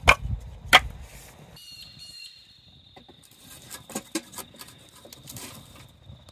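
Split firewood sticks knocking together twice, sharply, as they are picked up from a pile, then light clicks and crackles as the wood is laid on a burning campfire. A steady high insect trill runs behind.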